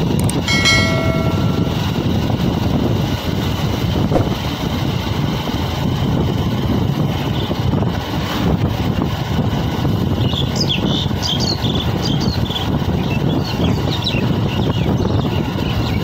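Steady rumble and wind noise of travelling along a road in a vehicle, with a short horn toot about half a second in and brief high chirps in the second half.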